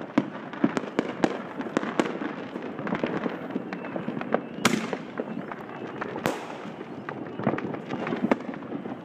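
Consumer fireworks going off: many scattered pops and cracks in quick succession, with two louder bangs about halfway through, a second and a half apart.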